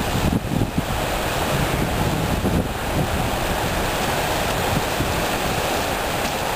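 Small sea waves breaking and washing up the shore, with gusty wind buffeting the microphone.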